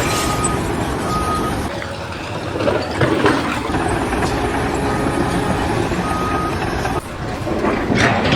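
A vehicle reversing alarm beeping in short, evenly spaced beeps over steady engine noise; the beeps sound in the first second or so and again between about five and six and a half seconds in.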